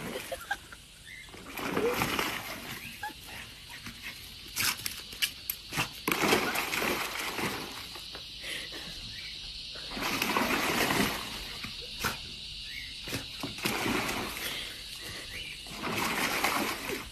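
A young Staffordshire bull terrier splashing about in a plastic paddling pool of foamy water, in irregular surges with a run of short sharp splashes in the middle.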